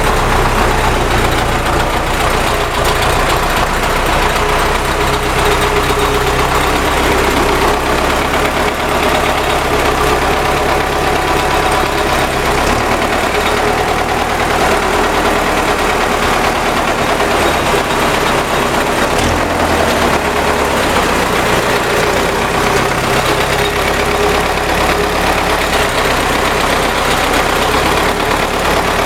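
MTZ (Belarus) tractor's diesel engine running steadily at idle, with a knock in the engine.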